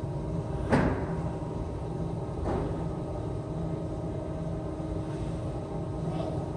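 Thumps from a child moving about inside the plastic tubes of a play structure: a sharp knock about a second in and a softer one a couple of seconds later, over a steady low hum of a large room.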